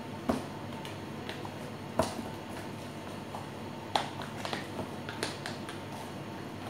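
A handful of sharp, light clicks and knocks of kitchen containers and utensils being handled on a counter, the loudest about two and four seconds in, over a steady low hum.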